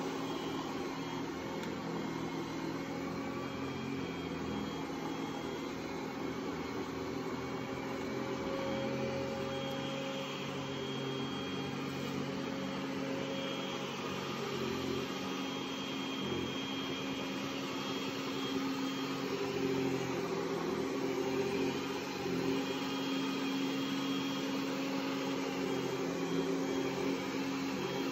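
Ecovacs Deebot T9 robot vacuum cleaning a rug: its suction fan and motors run with a steady hum and a faint high whine.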